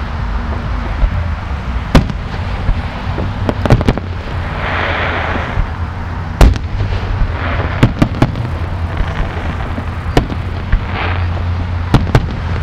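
Fireworks display bursting: a string of sharp bangs, irregularly spaced a second or two apart and sometimes in quick pairs, over a steady low rumble. About five seconds in there is a hissing crackle.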